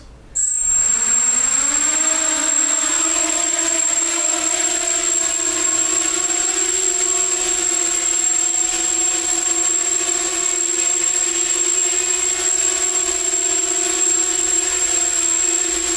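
A 250-size racing quadcopter's motors spin up suddenly about a third of a second in, the hum rising briefly in pitch as the craft lifts off. It then holds a steady buzzing hum from its 5-inch, 3-pitch (5030) propellers, with a thin high whine above it, as it hovers.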